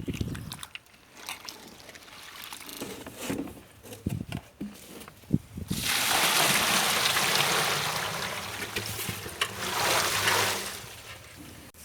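Light knocks and handling sounds, then about six seconds in, water pours steadily for about five seconds before stopping.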